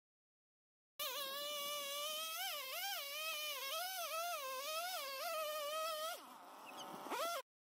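Chainsaw cutting into a storm-snapped tree trunk, its buzzing pitch wavering up and down as the saw bogs and recovers in the wood. The pitch drops about six seconds in, then rises again before the sound cuts off abruptly.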